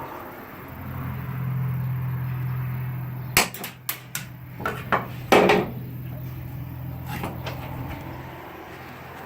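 A hammer striking a worn drill bit used as a punch, knocking a clipped rivet through the metal floor of a van: about five sharp strikes in quick succession a few seconds in, the last the loudest, with a brief ring.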